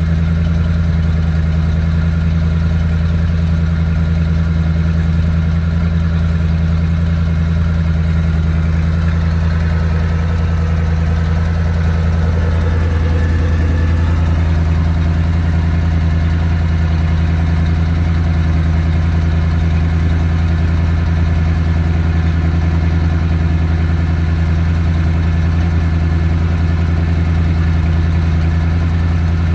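OMC 5.7-litre small-block V8 stern-drive engine idling steadily out of the water, cooled by a garden hose feeding the Cobra outdrive, with exhaust water splashing out at the propeller onto concrete. The owner's complaint about this engine is a clanking noise and overheating.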